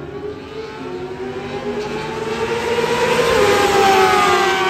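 Racing superbikes at full throttle passing down the straight. The high engine note rises and grows louder for about three seconds, then falls in pitch as the bikes go by near the end.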